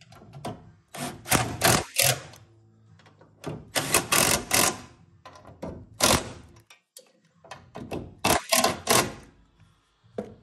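Cordless impact driver hammering bolts down in several short bursts, with pauses between them as each bolt is run in and tightened.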